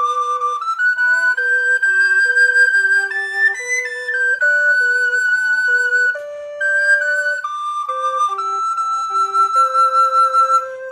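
Two recorders playing a duet: a higher part holding long notes over a lower part moving in shorter notes.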